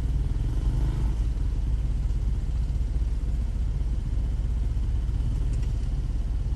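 Off-road vehicle engine running at a steady low speed, a deep, even hum with no revving.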